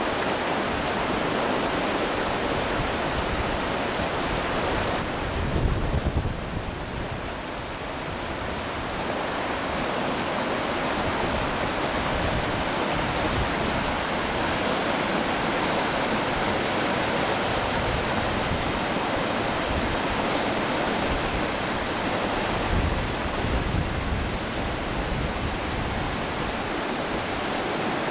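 Swollen river rushing over rapids: a steady, full roar of white water. Twice, about six seconds in and again near the end, a brief low rumble of wind on the microphone rises over it.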